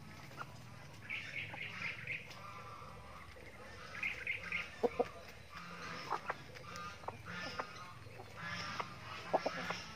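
Chickens clucking in short, pulsing bursts while feeding, one group of calls after another. A few sharp ticks come in quick pairs about five seconds in and again near the end, and these are the loudest sounds.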